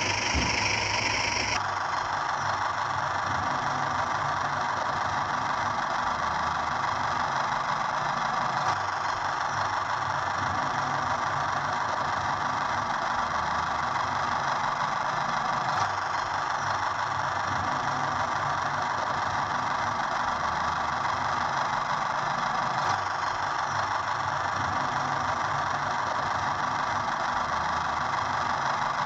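A small motor running steadily with an even whirring hum. A brighter, louder sound overlaps it for about the first second and a half, then cuts off.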